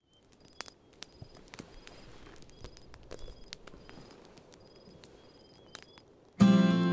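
Campfire crackling, with sharp irregular pops and snaps, while crickets chirp in short repeated calls. Near the end, a loud acoustic guitar chord is strummed and rings on.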